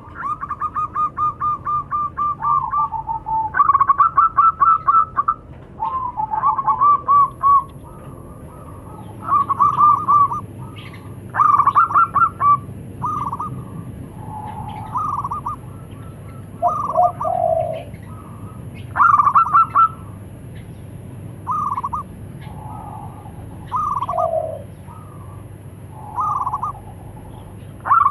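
Zebra doves (perkutut) calling back and forth in phrases of rapid staccato coos, one phrase every second or two, some pitched higher and some lower.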